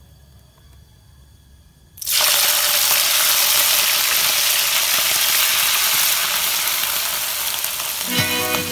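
Shrimp deep-frying in a pan of hot oil: a loud, steady sizzle starts suddenly about two seconds in as the shrimp go into the oil. Music comes in near the end.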